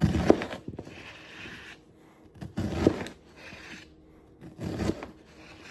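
Kitchen knife cutting through an onion on a plate, in three separate strokes about two seconds apart, with scraping between them.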